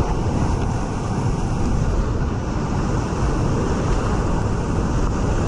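Steady, loud rush of whitewater rapids churning all around a kayak in the middle of the rapid, with spray splashing onto the camera.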